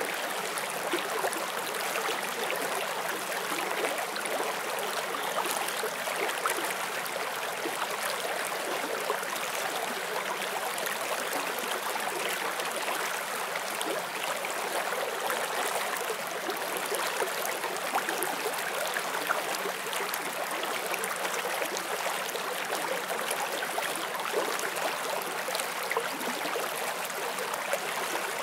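Forest stream flowing steadily over rocks: an even rush of water with many small splashes and gurgles.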